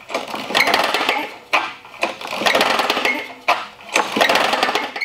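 Briggs & Stratton lawnmower engine being spun over by its recoil pull-start rope, about four pulls in quick succession, each a loud rattling burst. The cylinder head is off, so it cranks with no compression; the engine, seized from running without oil, is now turning over after being lubricated.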